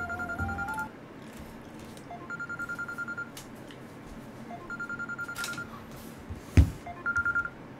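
A telephone ringing with a trilling electronic ring, about four rings of roughly a second each, the last cut short near the end. A single sharp knock about two-thirds of the way in is the loudest sound.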